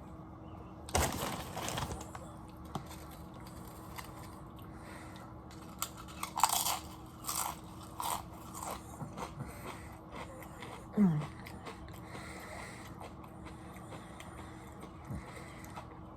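Close-up crunching and chewing of chips with dip, in separate bursts: one about a second in, then a run of crunches from about six to nine seconds. A brief low falling hum follows a little after eleven seconds.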